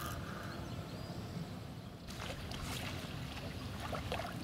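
A hooked silver carp splashing at the surface of the pond in irregular splashes, starting about halfway through, as it is played toward the landing net, over a steady low rumble.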